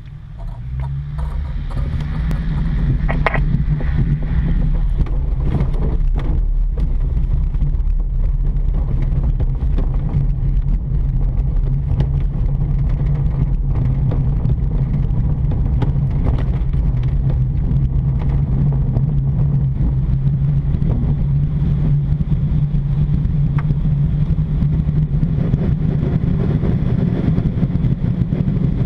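Grob G103 Twin Astir glider on its aerotow takeoff roll across a grass airfield. There is a steady low rumble from the wheel on the grass and the rushing air, which builds over the first couple of seconds as the tow starts pulling.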